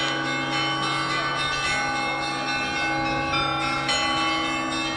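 Church bells ringing together: several bells struck in overlapping strokes, their tones ringing on and blending.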